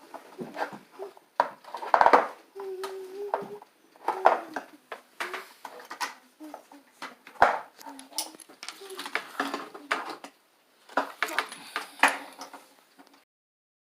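Hard plastic toy track pieces clattering and clicking as they are handled and snapped together, in irregular knocks, stopping abruptly near the end.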